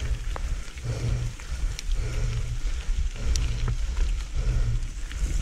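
Mountain bike riding down a wet trail: a steady low rumble that swells and fades about once a second, with scattered clicks and rattles from the bike.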